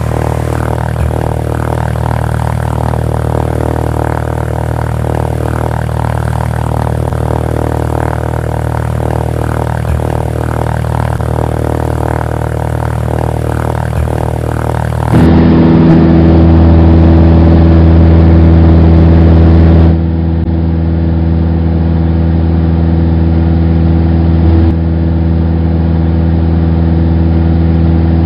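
Single-engine light aircraft's piston engine running steadily, laid onto the film as an added sound track. About halfway through it cuts abruptly to a louder engine recording, and it changes again a few seconds later.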